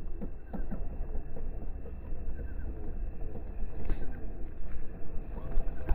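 Radio-controlled Axial SCX10 II Honcho rock crawler driving slowly over dirt and weeds, its electric motor and tyres running under a heavy low rumble, with scattered small clicks.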